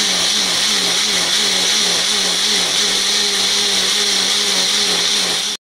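Personal blender's motor running steadily, blending a milk smoothie of apple, banana and oats, with a humming tone that wavers slightly in pitch. It stops abruptly near the end.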